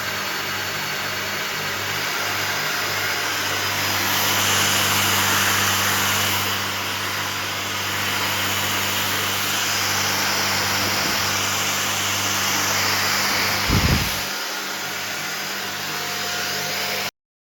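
Xiaomi Dust Mite Vacuum Cleaner Pro running, a steady motor hum under a rush of air that swells and eases a few times. A short low thump near the end, then the sound cuts off abruptly.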